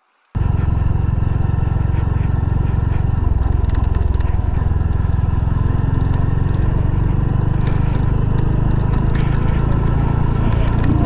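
Motorcycle engine running steadily while riding, heard from on board over a steady rush of noise. The sound cuts in abruptly just after the start.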